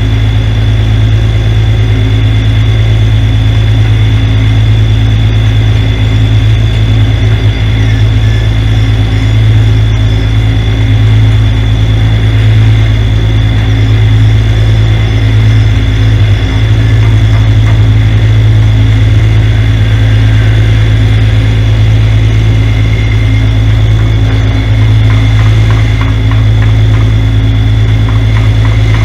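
Semi truck's diesel engine idling steadily, a loud, even low hum with no change in speed.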